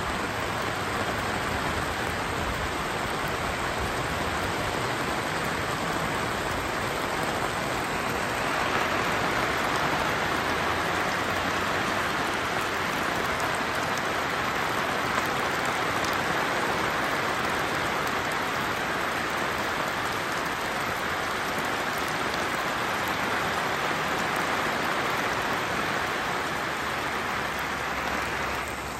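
Steady rain falling during a thunderstorm, growing a little louder about nine seconds in.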